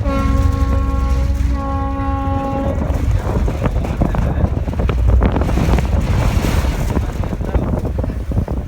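A ferry's horn sounds one steady pitched tone for nearly three seconds, over the low rumble of the boat and wind buffeting the microphone.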